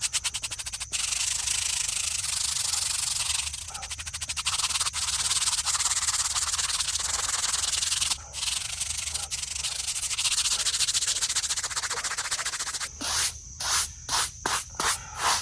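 A brush scrubbing a weathered, algae-covered gravestone with rapid back-and-forth strokes, broken by a short pause about eight seconds in. Near the end the scrubbing slows into separate strokes, about three a second.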